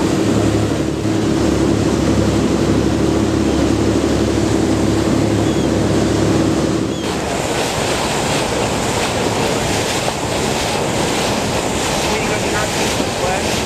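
A boat's engine running steadily over rushing wake water. About seven seconds in the engine tone stops abruptly, leaving wind on the microphone and water noise.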